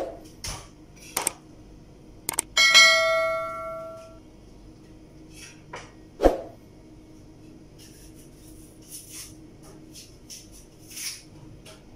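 A few sharp clicks, then a single bell ding about two and a half seconds in that rings for about a second and a half, and another sharp click a few seconds later: the click-and-bell sound effect of an on-screen subscribe-button animation.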